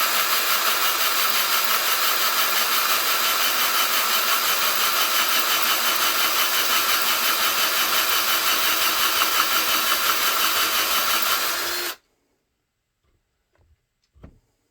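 Electric drill running steadily, driving a dull 17/64 drill bit into a cast-iron Mopar 360 cylinder head's emissions port to enlarge the hole. It stops suddenly about twelve seconds in, followed by a few faint clicks.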